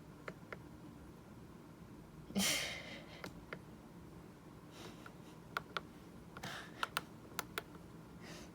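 Buttons on a Midland WR400 weather radio's keypad being pressed: a scatter of single sharp clicks, about a dozen in all, several of them bunched between five and eight seconds in. A short burst of noise, louder than the clicks, comes about two and a half seconds in.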